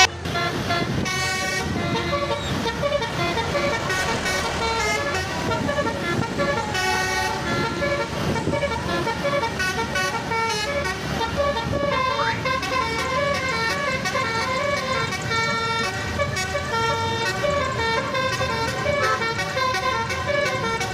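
Telolet-style musical horn tune from an odong-odong Tayo mini bus ride: a continuous run of stepped, horn-like notes with no pauses.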